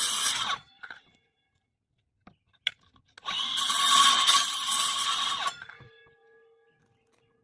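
Power saw cutting plywood in two runs: it stops about half a second in, a click comes near the middle, and it runs again for about two seconds before cutting off and winding down with a faint fading hum.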